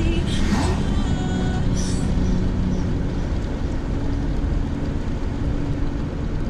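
Steady road and engine rumble inside a moving car's cabin, with a brief whoosh of an oncoming car passing about half a second in.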